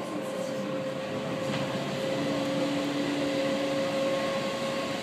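Running noise inside a Seibu 4000 series electric train carriage in motion: a steady rush of wheels on rail with a held mid-pitched hum. A second, lower tone joins about two seconds in and fades out near the four-second mark.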